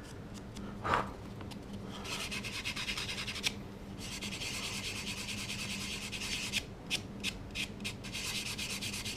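Fine sanding stick rubbing over cured light-curing putty on a small resin model part. Long, even strokes start about two seconds in, followed by a run of short, quick strokes near the end.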